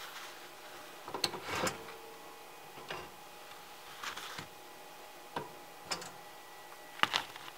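Paper towel rustling and short taps and clicks as hands handle a frosted toaster pastry on a countertop right beside the microphone, a scattered handful of small handling noises with the sharpest about a second in and near the end.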